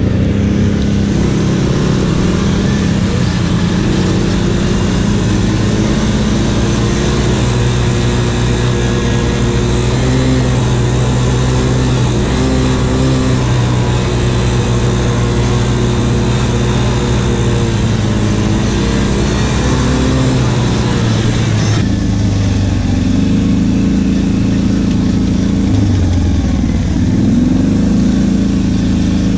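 ATV engine running on a trail ride, its note rising and falling with the throttle. The engine note changes abruptly about 22 seconds in.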